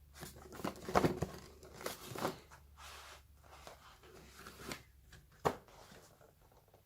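Phone packaging being handled and opened by hand: irregular rustling, crinkling and tearing with scattered knocks, busiest about a second in, and a sharp click about five and a half seconds in.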